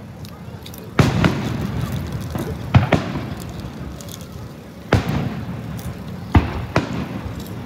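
Aerial fireworks shells bursting: about six sharp booms at uneven intervals, each with an echo trailing after it.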